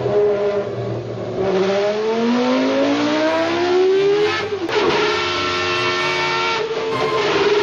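Renault Formula 1 V10 racing engine revving on a dyno test bench. Its pitch climbs steadily for a few seconds, drops abruptly about four and a half seconds in, then holds steady at high revs.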